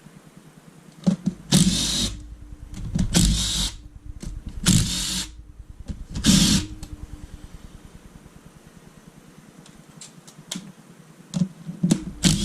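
A handheld power tool spinning bolts out of a 2008 Honda CRF450 engine's crankcase halves, in four short bursts and a fifth near the end, with small metal clicks in between.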